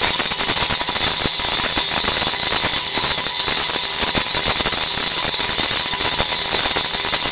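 DBL 3000 on-car brake disc lathe running, spinning the wheel hub while its cutting tips machine the brake rotor: a steady, unbroken metallic hiss.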